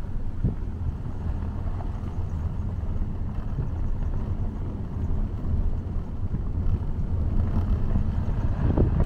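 Steady low rumble of a car driving along a road.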